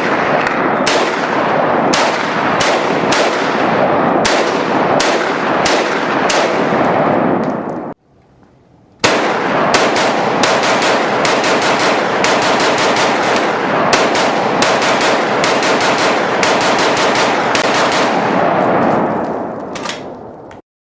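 Rapid, continuous gunfire at a gun range, the shots coming so thick they overlap into one sustained racket, like machine-gun fire. It runs for about eight seconds, stops for about a second, then starts again for about eleven seconds before trailing off.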